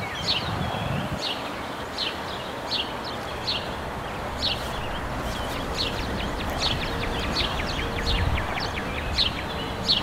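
A songbird repeating short, sharp down-slurred chirps about once or twice a second, over a steady hiss of rain and a faint low rumble.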